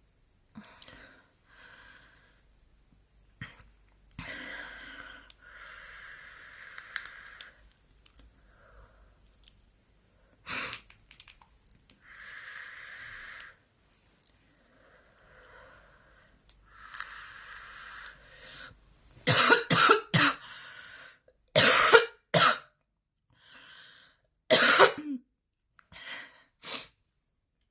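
A woman coughing, with heavy breaths in and out and one sharp cough about ten seconds in, then a fit of loud coughs in quick succession over the last third.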